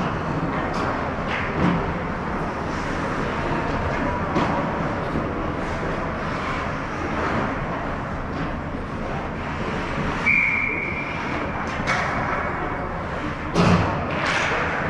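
Ice hockey game on the rink: a steady rumble of skates on ice with scattered clacks of sticks and puck. A referee's whistle sounds once for about a second and a half around ten seconds in, and a loud knock comes near the end.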